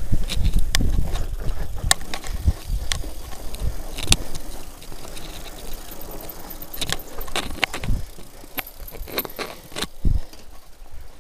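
Enduro mountain bike rattling as it rolls over a bumpy grass track, with a scatter of sharp clicks and knocks from the frame and components and a low thump near the end.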